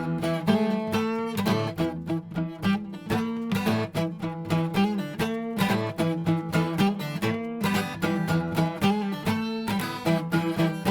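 Instrumental music: acoustic guitar strummed and picked in a steady rhythm.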